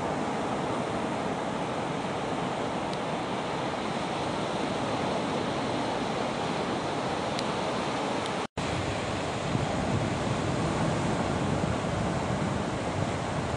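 Steady noise of breaking ocean surf with wind on the microphone; the sound drops out completely for an instant about eight and a half seconds in.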